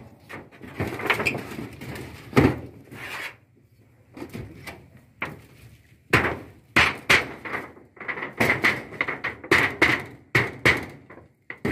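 Hammer blows on a satellite dish's metal pole mount: a few single knocks in the first seconds, then a quicker run of about a dozen sharp blows from about six seconds in.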